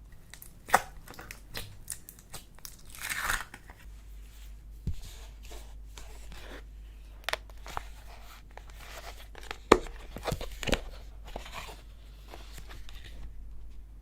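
Clay slime being handled and stretched by hand: irregular sticky crackles, tearing sounds and sharp pops, the loudest pops about a second in and near the ten-second mark.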